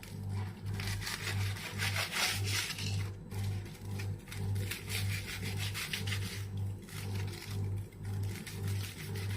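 Knife sawing back and forth through a chilled, foil-wrapped bread sandwich roll, repeated scraping strokes over a low, evenly pulsing hum.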